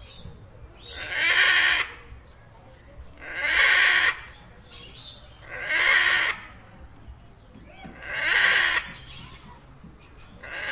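Macaw giving loud, harsh squawks about every two and a half seconds: four full calls, with a fifth starting right at the end.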